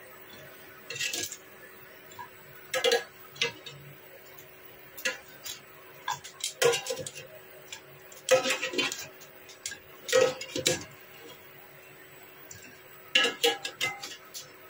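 Kitchen tongs clattering against an air fryer basket and a plate as roasted potato pieces are lifted out and set down, in irregular clinks with a quick flurry near the end.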